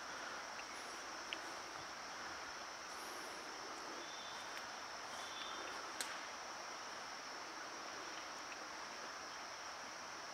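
Steady high-pitched drone of forest insects, with two sharp clicks, one about a second in and one near the middle, and a few faint high chirps.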